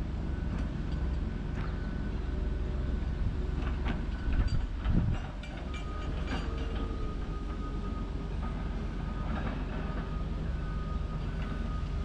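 Excavator's diesel engine running under load with a steady hydraulic whine as it pushes against a massive cottonwood tree, with a cluster of metallic clanks and knocks about four to five seconds in.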